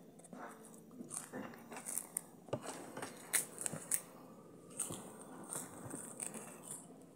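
Crunchy bites and chewing of a puffed grain cake: irregular sharp crackles and crunches, strongest in a few bites in the middle.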